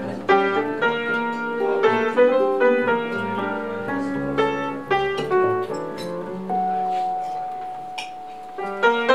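Live small-group jazz: piano playing melody and chords over a plucked upright double bass, with a hollow-body archtop guitar in the trio. A single note is held for a couple of seconds in the second half before the piano chords come back.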